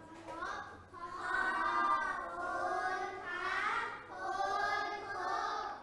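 A class of young children chanting together in unison, in a drawn-out sing-song way, in two long phrases: the class's spoken farewell in reply to the teacher's goodbye.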